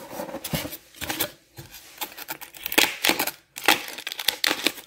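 A cardboard box and a white foam packing block being handled and lifted apart, giving irregular short scrapes, rustles and taps.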